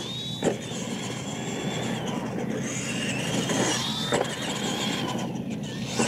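Radio-controlled monster truck's motor and gears whining, rising and falling with the throttle. A sharp knock about half a second in as the truck lands a jump.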